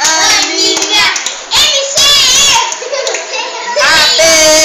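Voices singing along with hand clapping, high children's voices among them.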